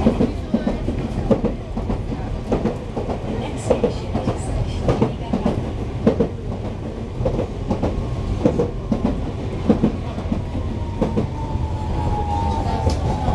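Enoshima Electric Railway (Enoden) train heard from inside the car while running: a steady low rumble with wheels knocking over rail joints, and a whine that falls in pitch near the end.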